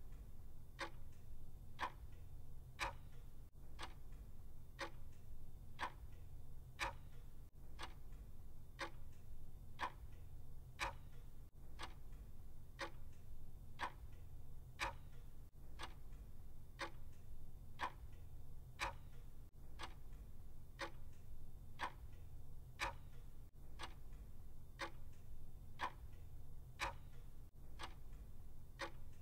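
Mechanical clock ticking steadily with sharp, evenly spaced ticks over a faint low hum.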